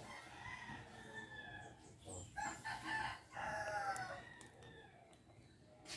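Rooster crowing, several drawn-out crows, the loudest around the middle.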